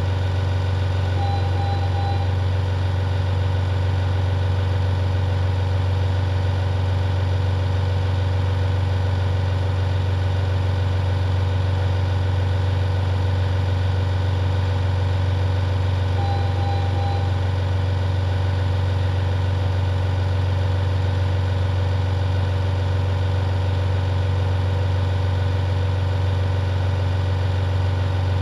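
Steady low machine hum, unchanging throughout, with a short high beep twice, about fifteen seconds apart.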